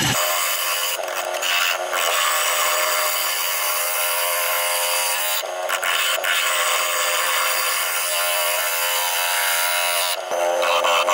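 Bowl gouge cutting the outside of a spinning olive ash bowl blank on a wood lathe: a steady rushing hiss of shavings peeling off, broken briefly a few times as the tool comes off the wood, over a steady hum.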